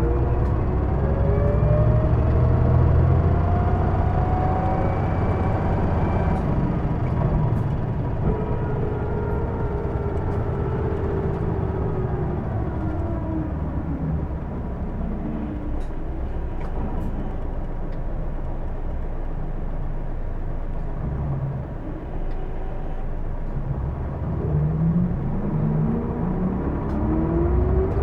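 Hino Blue Ribbon II city bus heard from inside the cabin, its diesel engine and drivetrain running under a low rumble. A whine rises with speed as the bus pulls away, falls as it slows from about eight to thirteen seconds in, and climbs again near the end. This whine is the abnormal noise this bus is known for.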